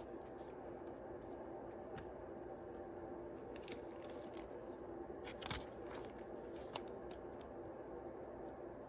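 Yu-Gi-Oh! booster pack wrappers and trading cards being handled: soft scattered rustles, crinkles and ticks, with a louder rustle about five and a half seconds in and a sharp click about a second later, over a steady low hum.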